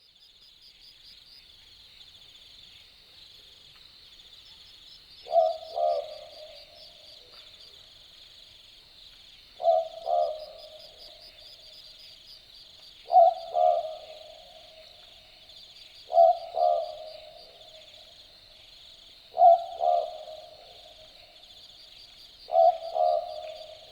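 Australian Boobook owl giving its typical two-note 'boo-book' call, six times at an even pace, the first about five seconds in. The second note follows the first by about half a second. A steady high-pitched trilling runs underneath throughout.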